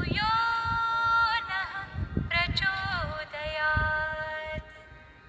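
A woman's voice singing long, held, wordless notes that slide from one pitch to the next, over an uneven low rumble.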